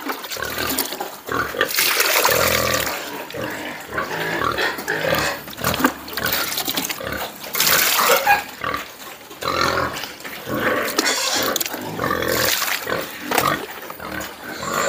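A pen of fattening pigs eating a wet mash of cooked sweet-potato vines and corn bran from a trough, in uneven bursts of noisy feeding sounds.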